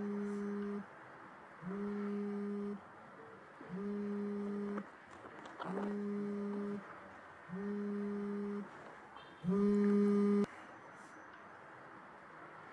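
A mobile phone vibrating: six buzzes of about a second each, roughly two seconds apart, the last one louder.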